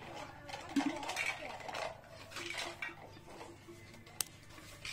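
Handling noise from a small TV circuit board and its wire-harness connector turned over in the fingers: irregular rustling and light clinks, with one sharp click a little after four seconds.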